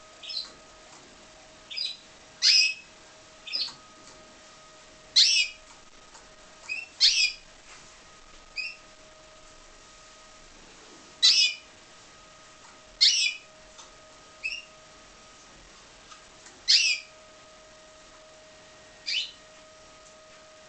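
Spanish Timbrado canary giving short high chirps, about one every one to two seconds, with pauses between them rather than a continuous song. A faint steady hum runs behind.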